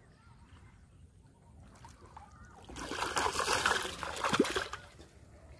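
Water splashing and sloshing for about two seconds, starting a little before halfway through.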